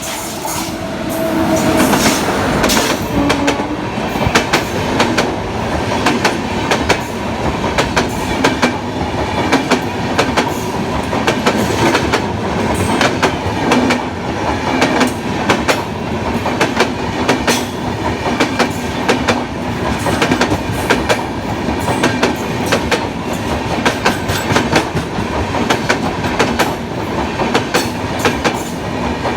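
Express train running past at speed, its coach wheels clattering over the rail joints in a steady stream of sharp clicks over a loud rumble. The clatter grows louder about two seconds in and stays up.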